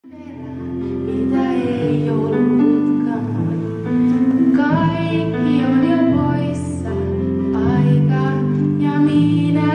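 Background music: a gentle song with a high singing voice, rising in from silence at the start.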